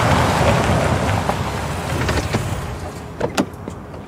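Car pulling up, its engine and tyre noise loud at first and fading as it slows to a stop, then a few sharp clicks about three seconds in.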